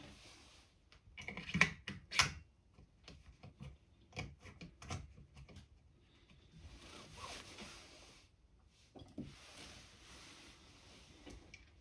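Clicks and knocks of small metal parts of an Air Arms TX200 air rifle action being handled and fitted by hand. The loudest are two sharp clicks about two seconds in, followed by scattered taps and two stretches of rubbing and sliding.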